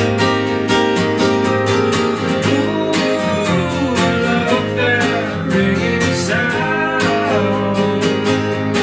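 Acoustic band playing live: two acoustic guitars strummed in a steady rhythm with bass underneath, and a melody line sliding in pitch over them in the middle.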